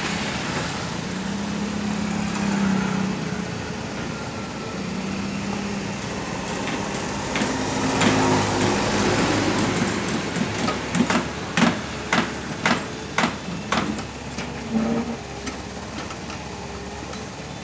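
Komatsu mini excavator's diesel engine running while it digs, with a motorbike passing close by about eight seconds in. Later comes a run of about eight sharp knocks, roughly two a second.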